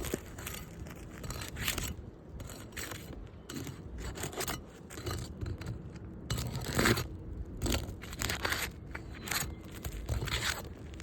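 Asphalt three-tab roof shingles being worked loose, with repeated irregular scraping and crunching strokes. The strongest stroke comes near the middle.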